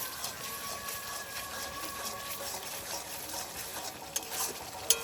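Spice paste frying in hot oil in a pan, sizzling as it is stirred with a spatula, with a couple of sharp knocks of the spatula against the pan near the end. The masala is being cooked down until the oil separates from it.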